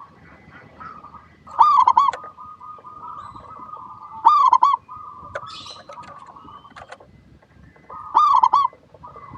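Zebra dove (perkutut) cooing: three loud rolling coo phrases, about three seconds apart, with softer steady cooing between them.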